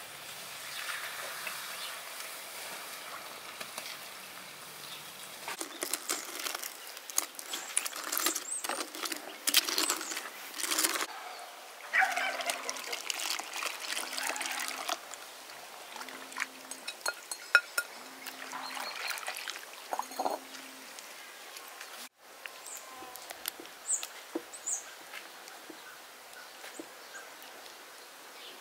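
Milk pouring into a metal pot, and a silicone whisk stirring and knocking against the pot as a thick dark mixture is poured in and whisked, with many short clicks and scrapes. Birds chirp briefly near the end.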